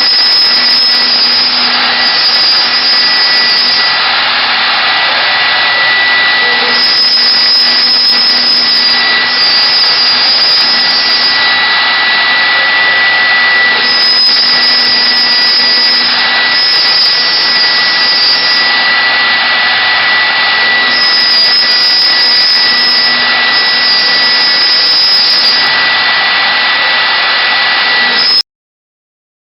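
CNC router spindle cutting wood: a steady high whine over a hiss of cutting, its tone shifting every few seconds as the cutter moves through the work. It cuts off abruptly near the end.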